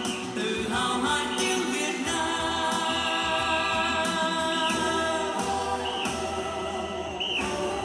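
Music with a choir of voices singing long held notes.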